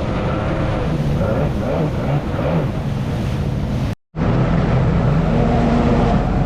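Jet ski engine running under way, its pitch wavering in the first half, mixed with water rush and wind on the microphone. A brief dropout about four seconds in breaks the sound before it carries on steadily.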